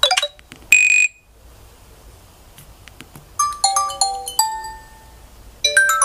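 Nokia 6300 4G ringtone previews from the phone's small speaker as the ringtone list is scrolled. The tail of a quick chiming tune gives way to a loud, brief buzz tone about a second in, then a few soft key clicks. Short bursts of a plinking melody follow, and a new melody starts near the end.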